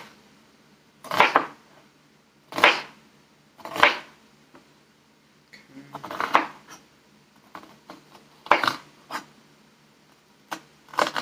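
Kitchen clatter: a series of separate knocks and clunks a second or two apart, with a quick cluster about six seconds in, as utensils and containers are handled and set down.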